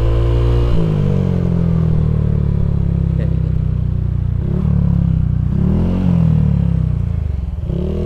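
Honda Vario 150 scooter engine, a single cylinder bored up to 160 cc, running under way. Its pitch drops about a second in as the throttle eases off, holds steady, then rises and falls several times in the second half as the scooter slows to a stop.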